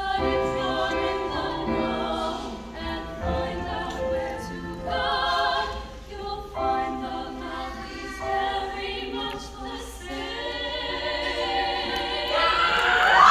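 Three female voices singing a song in close harmony, the notes held with vibrato. Audience cheering starts to swell near the end.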